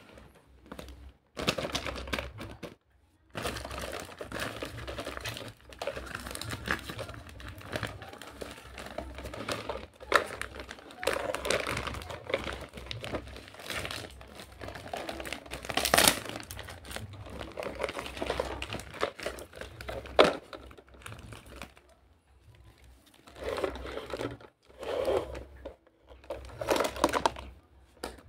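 Clear plastic packaging bag crinkling and rustling in irregular bursts as it is pulled off a plastic toy cart, with a few sharp clicks.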